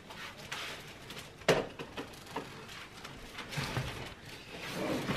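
Handling noises on a wooden tabletop: a sharp knock about one and a half seconds in as an object is set down, then light taps and rustling as a cardboard product box is handled.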